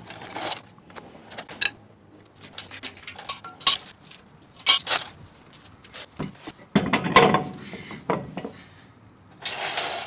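Irregular metallic clinks and knocks as a truck wheel and its lug nuts are handled and the wheel is fitted back onto the hub studs, with a heavier clunk about seven seconds in.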